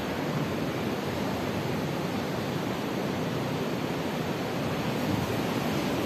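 Distant ocean surf breaking on a reef, heard as a steady, even roar, with breeze on the microphone.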